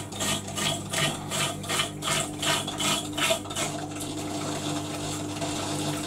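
A small washing machine water pump, its broken motor coil winding freshly repaired, running with a steady electric hum and a rhythmic rattling clatter about three times a second. The rattle fades about four seconds in. The owner puts the noise down to the pump running without water.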